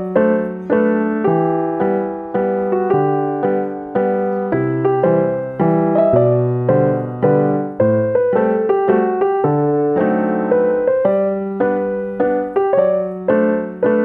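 Background music: a gentle piano tune, its notes struck at an even pace of about two a second, each ringing and fading.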